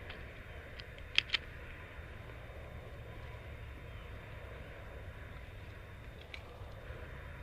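Two sharp airsoft gun shots in quick succession about a second in, with a few fainter ticks later, over a steady low background rumble.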